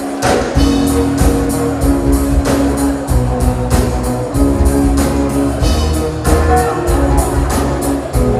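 Live band music: an instrumental passage with guitar over a bass line and a steady drum beat.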